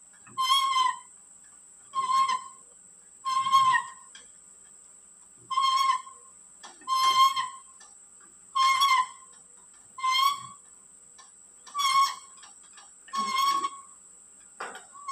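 Tractor wheel nut squeaking as it is turned with a long wrench: about ten short, high squeaks, one every second and a half, one for each pull on the wrench.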